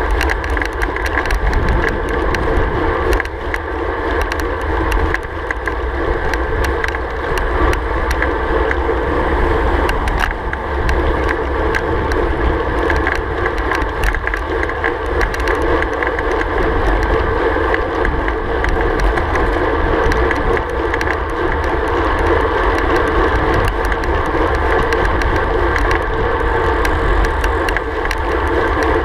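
Steady rush of wind and tyre noise from a road bike riding at about 40–45 km/h, with low wind buffeting on the microphone.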